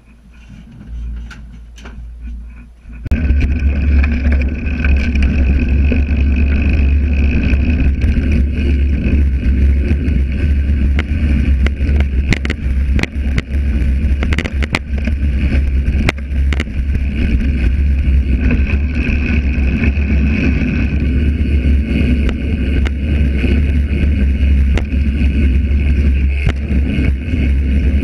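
Mountain bike riding fast over a dirt trail, heard from a frame-mounted camera: heavy rumble of wind and tyres on the microphone, with many sharp rattles and knocks from the bike over bumps. It starts suddenly about three seconds in, after a few quiet clicks.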